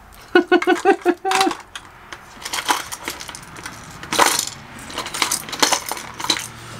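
Hard plastic crankbaits and their metal treble hooks clicking and clinking as they are sorted through in a plastic tackle box, in irregular sharp ticks. About half a second in, a man hums a quick run of short notes ending on a held one.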